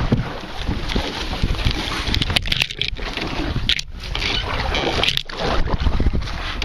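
Canoe paddle strokes sloshing and splashing in the water, with a few short sharp splashes among them.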